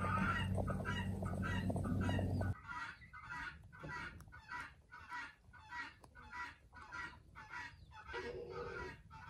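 Farmyard poultry calling over and over, about three calls a second. A steady low hum lies under the calls at first and cuts off abruptly about two and a half seconds in, after which the calls go on more quietly.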